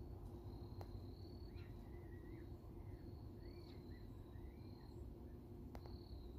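Quiet outdoor ambience: a steady low rumble, with a faint high insect-like trill coming and going and a few soft bird chirps in the middle, plus a couple of faint clicks.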